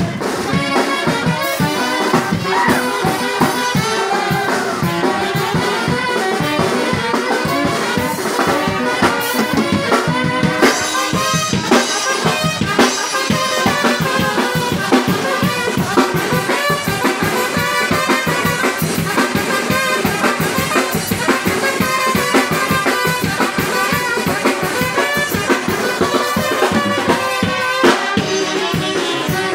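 A small live wind band playing a dance tune: saxophones and trumpet carry the melody over a steady beat on a drum kit.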